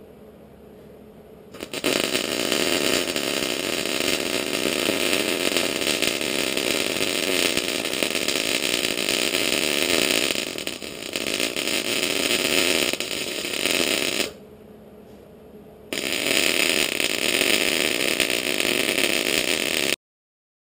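MIG welding arc crackling steadily as tooth shanks are welded onto a steel excavator bucket. The arc strikes about two seconds in, breaks for a second or so past the halfway mark, then runs again until the sound cuts off abruptly near the end.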